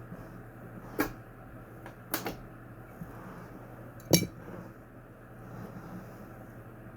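Sharp clinks and knocks of hard objects being handled: one about a second in, two close together just after two seconds, and the loudest just after four seconds, over a steady low hum.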